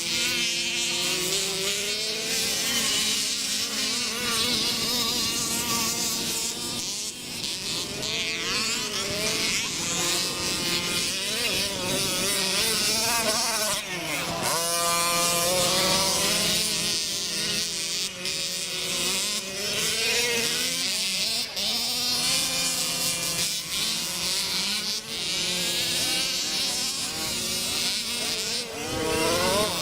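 Engines of several small Baja racers running at once, each revving up and down so the pitches rise and fall and overlap, with a high buzzing whine.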